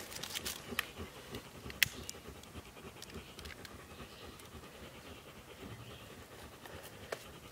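A few sharp scrapes of a ferro rod being struck to light kindling in a steel fire ring, the clearest about two seconds in and near the end, over a dog's soft panting.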